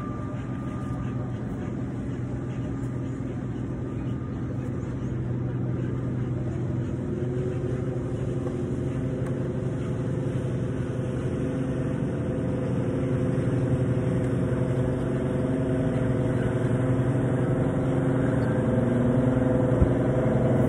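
Diesel engines of a large party fishing boat passing through the inlet: a steady low hum with a few held tones above it, growing gradually louder as the boat approaches.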